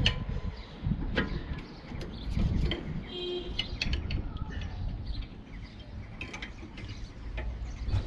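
Irregular metallic clicks, knocks and scrapes as a rear disc brake caliper is worked loose by hand and with a small pry tool, over a low rumble, with a brief bird chirp about three seconds in.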